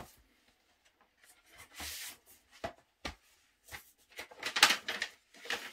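Paper and cardboard of a gatefold LP sleeve rustling and scraping in the hands, with a few small clicks, as a coloured vinyl record is slid out of its sleeve; the loudest rustle comes about four and a half seconds in.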